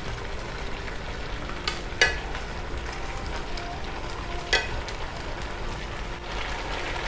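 Pork chops in sauce sizzling in a small frying pan, with about three sharp knocks of a utensil against the pan as they are stirred, the loudest about two seconds in.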